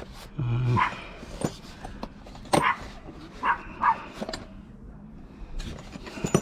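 A dog barking in short, sharp barks, about four in a few seconds, with light clicks and clinks in between.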